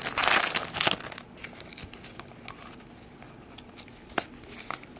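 A trading card pack wrapper crinkling and tearing for about a second, then a few faint clicks as the cards are handled.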